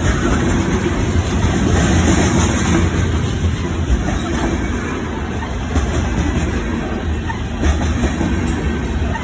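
Train running on the track: a steady, loud noise of wheels on rails, with a few faint clicks.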